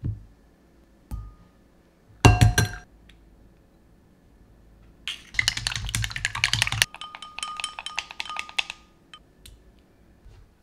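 Wooden chopsticks rapidly beating egg whites in a glass bowl, clicking against the glass for a few seconds from about halfway through. A few sharp knocks on the glass come around two seconds in.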